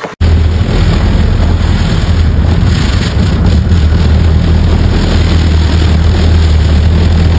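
An engine running steadily, a loud low hum under a constant hiss, starting abruptly just after the start.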